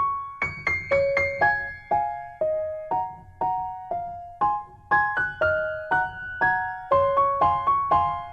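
Background music: a gentle melody of separate piano-like notes, each fading after it is struck, at an even pace of about two notes a second.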